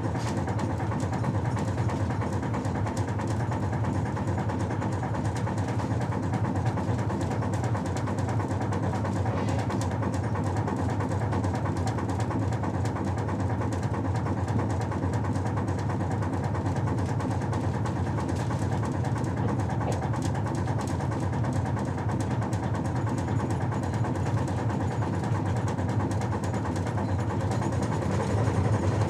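Ship's below-deck ambience: a steady, low machinery drone and hum that does not change.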